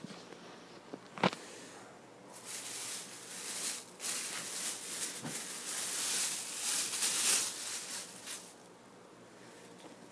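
Packaging rustling and crinkling as a football shirt is unwrapped, in uneven handfuls, from about two seconds in until about two seconds before the end. A single sharp click comes just before it.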